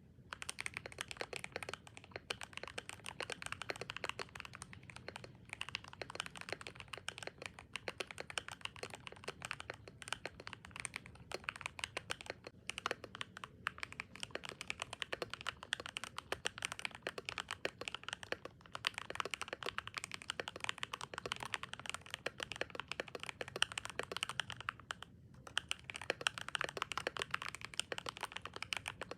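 Fast, continuous typing on a Royal Kludge RK100 mechanical keyboard with pre-lubed Gateron Pro Silver switches, tape-modded and with foam in the case: a dense run of key clacks with a few brief pauses.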